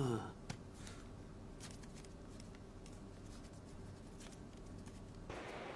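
Faint scratching and light ticks of ballpoint pens writing on paper, two people writing at a desk at once. A low steady hiss comes in near the end.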